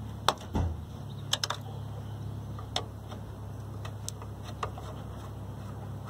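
Scattered sharp clicks and taps of a screwdriver working the screws of a CPU cooler's heatsink in a desktop PC case, about half a dozen in all, with the loudest near the start. A steady low hum runs underneath.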